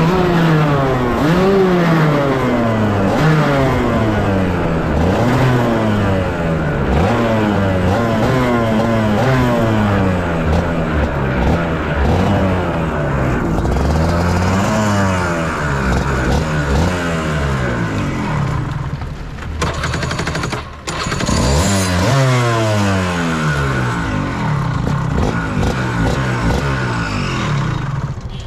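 Pro Kart 125cc go-kart engine heard from onboard, revving up and falling back over and over, its pitch rising and dropping roughly once a second as the kart slows to a stop. The level dips briefly about two-thirds of the way through.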